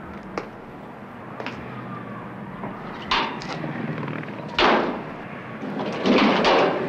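Bangs from an old car with its bonnet up: a small one about three seconds in, then two loud ones with a noisy rush, near five and six seconds, over a low steady hum.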